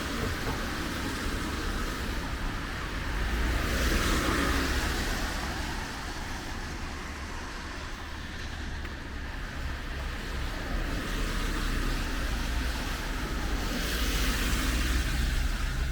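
Cars passing on a wet road, their tyres hissing through the water: one passes about four seconds in and another near the end, over a steady background hiss.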